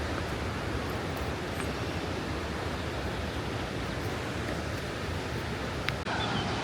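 Steady rush of water falling and cascading along the Krka River, with a single faint click about six seconds in.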